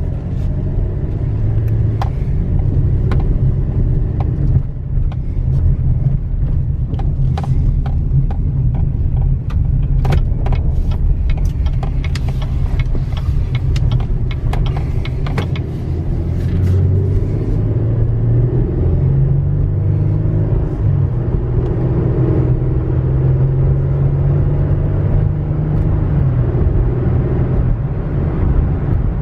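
A 2016 GMC Canyon pickup driving, heard from inside the cab: engine and road rumble that rises and falls in pitch as the truck speeds up and slows. Scattered sharp clicks and knocks come through the first half.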